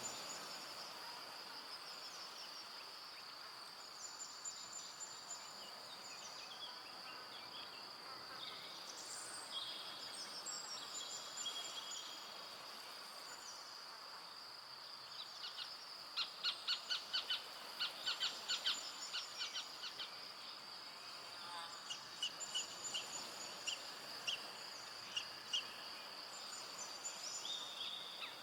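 Forest ambience at dusk: a steady high-pitched insect drone with scattered short bird whistles and chirps over it. A little past halfway comes a fast run of louder chirps, about four a second, lasting several seconds.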